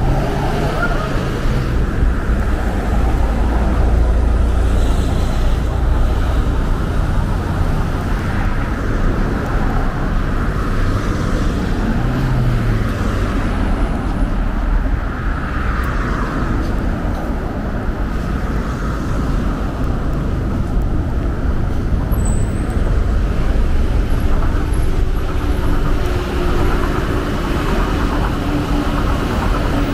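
Steady road traffic: cars passing close by on a multi-lane road, a continuous rumble of engines and tyres. A steadier engine hum, plausibly a passing bus, joins near the end.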